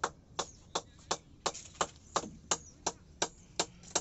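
A run of sharp, evenly spaced knocks, about three a second.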